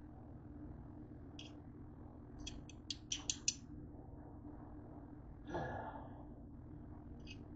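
Kitchen knife clicking against a cutting board while cutting cooked chicken breast: a single click, then a quick run of about five sharp clicks, and one more near the end. A brief softer sound that falls in pitch comes just after the middle, over a faint steady hum.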